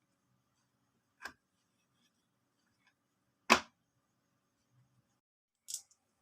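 Marble clicking against a wooden marble run: three separate sharp clicks about two seconds apart, the middle one the loudest and the last one thin and high.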